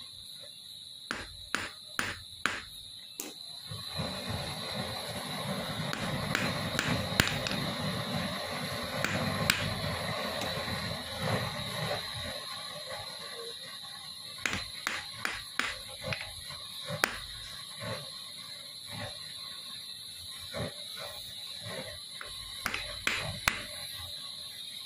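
Light, sharp metal taps and clicks from jeweller's tools working silver, coming in short clusters, with a stretch of steady rushing noise in the middle. A steady high cricket chirr runs underneath.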